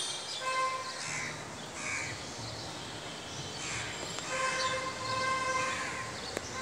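Crows cawing, a few short harsh calls spaced a second or more apart, over soft background music with held notes.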